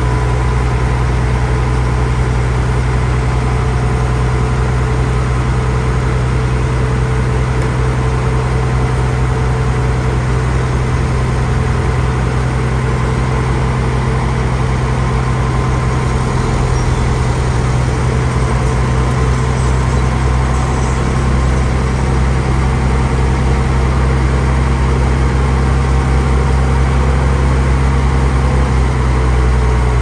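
Heavy diesel engine running steadily at a constant speed, with a low hum and a faint steady whine above it.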